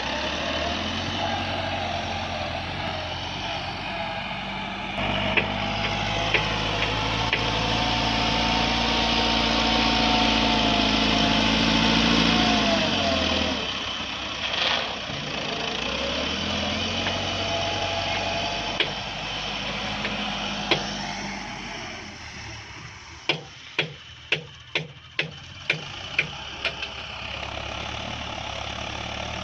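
Massey Ferguson 385 tractor's diesel engine running as it works a front blade, its speed rising and falling, with a marked drop about halfway through before it picks up again. Near the end the engine goes quieter and a quick run of sharp clicks sounds, about two a second.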